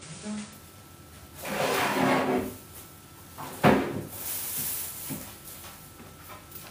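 A kitchen drawer or cupboard sliding with a scraping rub for about a second, then a sharp knock about three and a half seconds in, the loudest sound, as it shuts. A faint light rustle follows.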